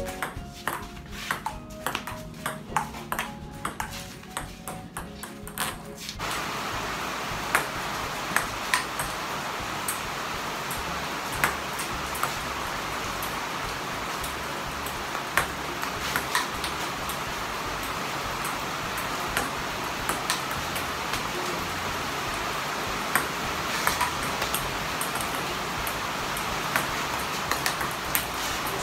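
Background music for about the first six seconds, then a table tennis rally: the ping-pong ball clicking sharply off the table and paddles at irregular intervals over a steady hiss.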